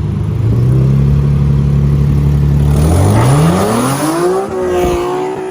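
Car engine running at a steady low speed, then revving up about three seconds in and holding at the higher engine speed.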